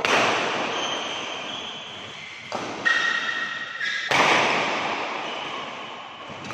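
Badminton rally: sharp racket-on-shuttlecock hits echoing in a large hall. A jump smash lands right at the start, followed by hits about two and a half, three and four seconds in.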